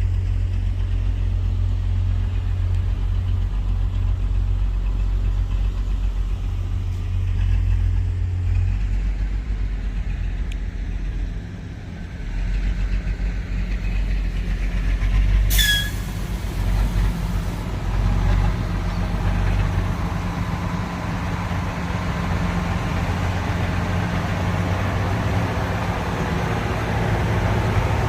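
Diesel engine of a Komatsu GD655 motor grader running under load with a deep, steady rumble. It dips briefly about twelve seconds in, and there is one short sharp noise near the middle before the engine works harder again.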